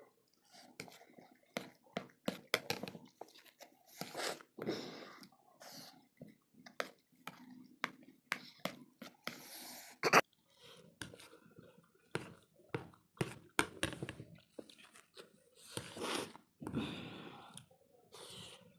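A person chewing a mouthful of spicy mixed vegetables with green chillies, with wet crunches and sharp mouth clicks, and a few longer hissing breaths in between.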